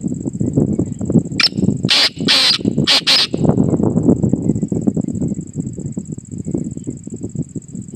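Black francolin calling: one harsh, grating phrase of about five rasping notes between one and three and a half seconds in. The phrase sits over a constant low, rapid crackling.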